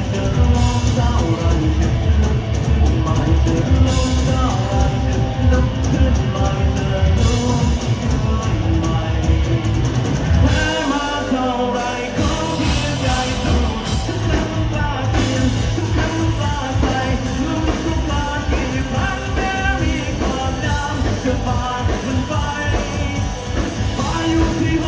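Rock band playing with a singer: drums, bass and electric guitar under a sung melody. The drums and bass drop out for a short break about ten seconds in, then come back in.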